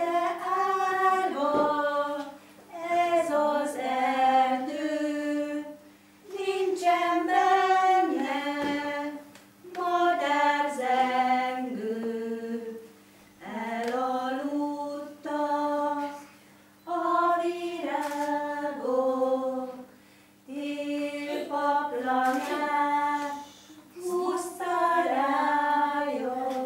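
A group of young children singing a song together, in short phrases of a couple of seconds with brief breaks between them.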